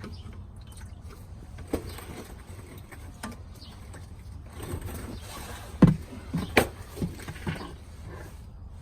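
A few short, sharp clicks and knocks from handling the fuel filter cap and filter element in their housing, the loudest about six seconds in, followed by several more in quick succession.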